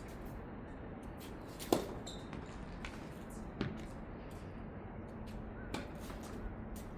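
Tennis ball struck by rackets in a rally, a sharp pop about every two seconds, the loudest a little under two seconds in, with fainter taps in between.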